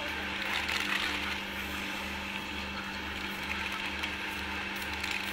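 Steady mechanical hum from a feed pellet press running, with a low throb about two and a half times a second under a constant tone.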